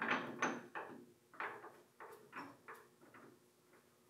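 Light metal clicks and knocks from handling a jaw on a Kurt DL430 vise and turning its screw with a hex key: a string of short clicks, loudest in the first second and thinning out after.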